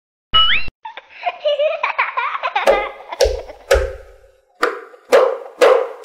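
Cartoon-style sound effects: a short rising tone, then a stretch of wavering, giggle-like voice sounds, then three sharp hits about half a second apart near the end.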